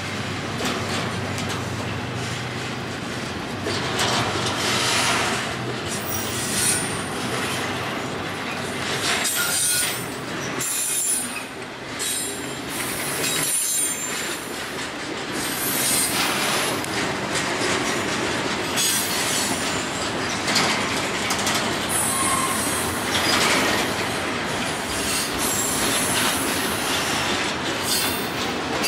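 Intermodal freight train's double-stack container cars and trailer-carrying flatcars rolling past: a steady rumble and rattle of steel wheels on rail, with brief high-pitched wheel squeals coming and going.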